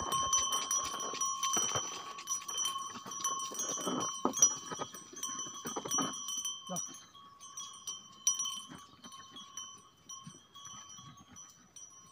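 A neck bell on a plough bullock ringing steadily as a pair of bullocks pull a wooden plough through the soil, with scattered knocks and a few short calls from the ploughman to the animals. It fades over the second half as the team moves off.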